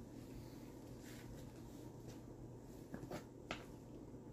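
A metal spoon stirring thick chili in a plastic pressure-cooker pot: faint scraping, with a few light taps of the spoon against the pot about three seconds in.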